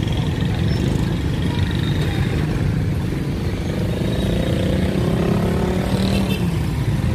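Small motorcycle engine running steadily, its pitch rising for a couple of seconds in the middle as it revs up.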